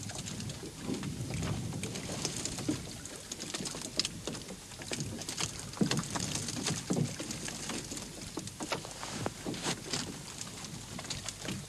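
Freshly caught fish flapping and slapping against the floor of an open boat after being tipped out of a hoop net, with irregular sharp taps and knocks throughout.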